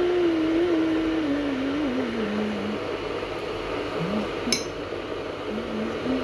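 A metal teaspoon clinks once against a ceramic mug while yogurt is spooned into it, about four and a half seconds in. Underneath runs a steady background hiss and rumble with a low tone that wavers in pitch.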